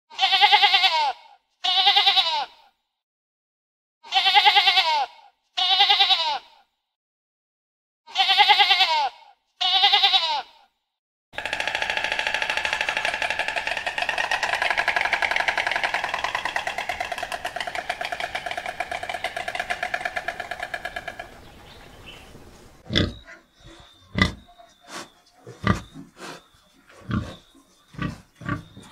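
Animal calls: three pairs of short pitched calls about a second each, with silent gaps between, followed by a long continuous cry of about ten seconds, then a run of sharp clicks and knocks near the end.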